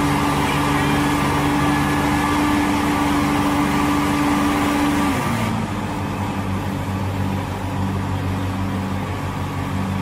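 Asphalt paver's engine running steadily under work. About halfway through, its pitch drops to a lower, steady speed.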